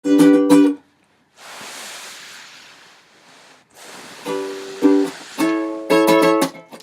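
Music of short strummed chords on a plucked string instrument, with a soft hiss in the gap between the first chord and the next run of strums.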